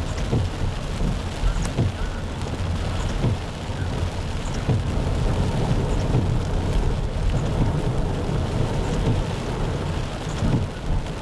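Heavy rain and a low, steady rumble of tyres ploughing through standing floodwater, with water spraying up against the car, heard from inside the car.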